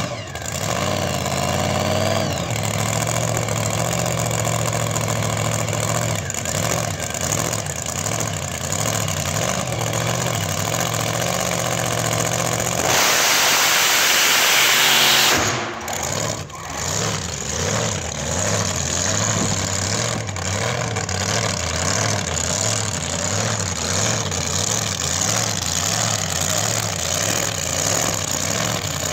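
Drag car's engine idling with an uneven, loping beat. About halfway through, a loud hissing rush lasts a couple of seconds.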